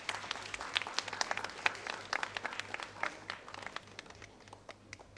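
Audience applauding: a burst of many hands clapping that thins out and fades toward the end.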